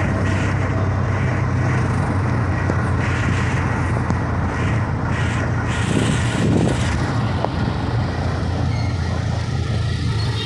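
Steady engine drone and road noise of a moving vehicle, heard from on board. Another vehicle passing close by is briefly louder about six seconds in.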